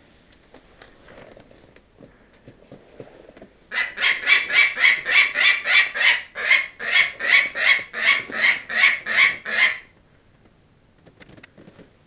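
A falcon calling: a fast, evenly spaced run of about twenty short, loud calls, roughly three a second. The calls start about four seconds in and stop near ten seconds.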